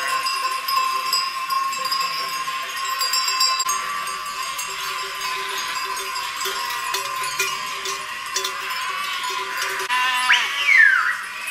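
Bells on a migrating sheep flock clanking and jingling without a break as the animals walk and graze. A sheep bleats once, loudly, near the end.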